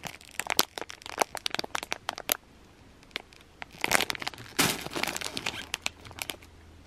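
Clear plastic packaging bags crinkling and crackling as bagged squishies are handled and swapped between hands, in two spells with a short lull about halfway through.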